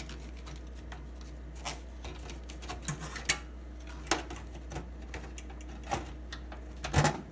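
A disk controller card being handled and pushed into an expansion slot of an IBM 5150 PC: scattered light clicks and scrapes, with a sharper knock about three seconds in and another cluster near the end.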